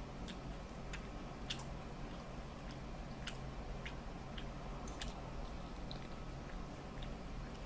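Close-miked eating of tandoori chicken with the fingers: irregular wet mouth clicks and smacks from chewing, with fingers tearing meat off a drumstick, over a faint steady low hum.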